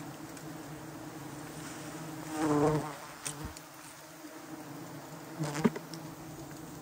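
Honey bees buzzing in a steady hum, swelling louder for about half a second as a bee passes close, two and a half seconds in. A short sharp knock comes near the end.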